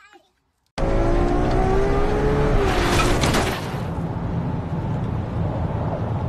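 FPV drone's motors whining over a rush of air, starting suddenly about a second in, the whine drifting slightly down in pitch; a brief louder, brighter rush near the middle, then a steady rushing drone.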